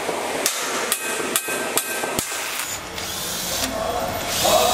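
A hammer striking metal in sharp, separate blows about two a second. From about three seconds in, a cordless drill whirs as it drives a screw into a cast brass part, louder near the end.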